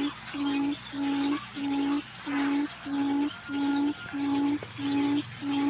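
Wild forest quail lure call: a low, even hooting note repeated about one and a half times a second, with faint high chirps above it.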